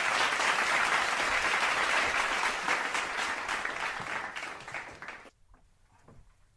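Applause: a dense patter of clapping that fades a little, then cuts off abruptly about five seconds in.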